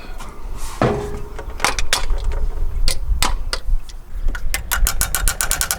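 Ford 400 V8 running with a low rumble and sharp knocking, scattered at first and then coming rapidly, several knocks a second, near the end.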